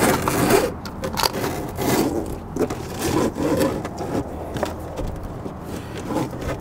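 Electrical wire being pulled through a tight gap in an RV service compartment, with irregular scraping and rubbing of the cable against the panels as it is handled.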